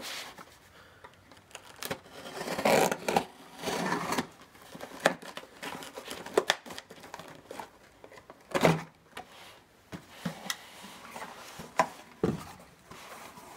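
Box cutter slitting the packing tape on a cardboard shipping box: irregular scraping and tearing of tape and cardboard, with a few sharp knocks. Near the end the cardboard flaps are pulled open.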